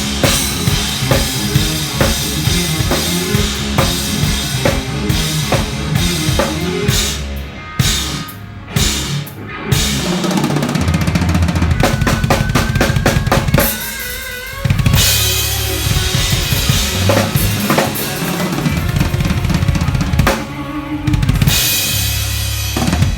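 Drum kit being played in a sound check: kick drum, snare and rimshots in busy grooves, with a run of very fast strokes about ten seconds in and a short break near fourteen seconds, over deep sustained bass notes.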